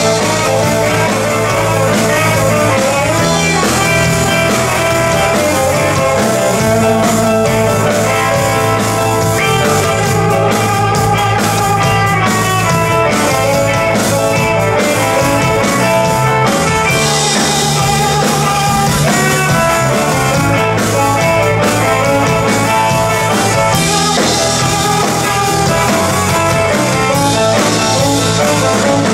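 Live blues band music: a Telecaster-style electric guitar plays over a drum kit, with the cymbals coming up stronger twice in the second half.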